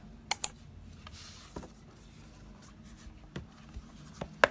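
Small clicks, taps and rubbing from a tablet in its folio case being handled and moved on a wooden desk. A pair of sharp clicks comes just after the start, and a louder tap comes near the end.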